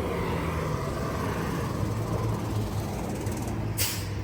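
Street traffic: a vehicle engine runs with a steady low hum, and a short hiss comes near the end.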